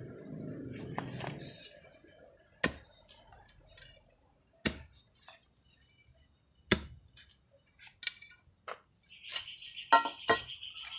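Metal digging tool striking hard ground and stones while a deep ube tuber is dug out: sharp clinks every second or two, some leaving a brief high ring, coming faster near the end.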